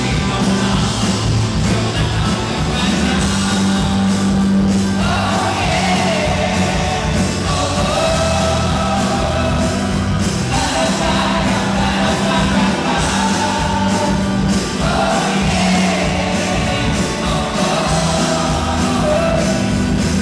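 Live rock band playing loud: a male lead singer sings into a handheld microphone over keyboard, bass guitar and drums, with band members joining in on backing vocals.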